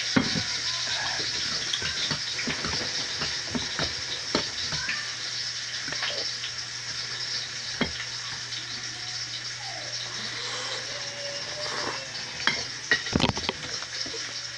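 Close-up eating sounds: chewing and slurping of spaghetti, with forks and spoons clicking and scraping on plates at irregular moments, over a steady hiss and low hum. The clicks cluster near the end.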